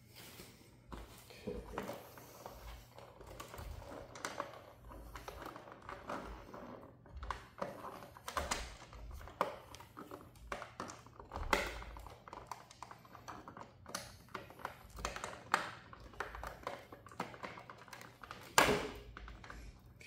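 Scattered plastic clicks, taps and knocks as the front headlight cowl of a KTM 390 Duke is unlatched and worked loose by hand. There is a sharp knock about 11 seconds in and the loudest one near the end.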